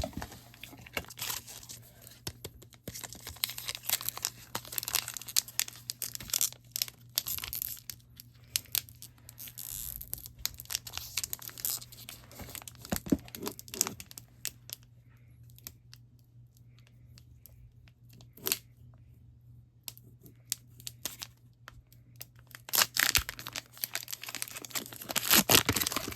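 Foil Pokémon booster pack wrapper being torn open and crinkled by hand, in irregular scratchy bursts. There is a quieter stretch about midway, and it gets louder again near the end.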